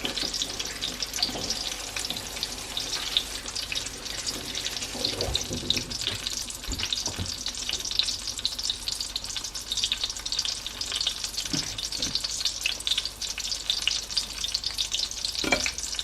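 An egg-coated aubergine patty sizzling and crackling steadily in shallow hot oil in a frying pan over medium heat.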